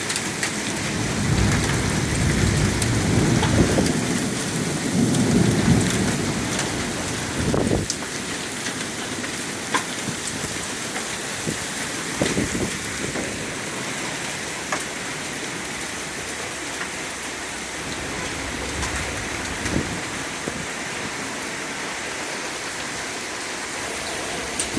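Heavy rain pouring steadily, with thunder rumbling low through roughly the first eight seconds and scattered sharp ticks of drops or hailstones striking nearby.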